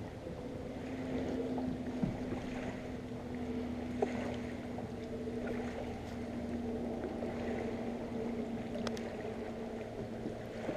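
Small ripples lapping against a moored fishing boat's hull, with a faint steady hum and two light knocks, about two seconds and four seconds in.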